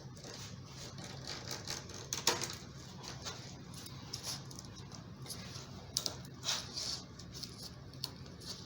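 Stanley utility knife blade cutting away the excess window screen mesh along the frame: an irregular run of small scratchy clicks, with a sharper click about two seconds in and a cluster of clicks about six seconds in.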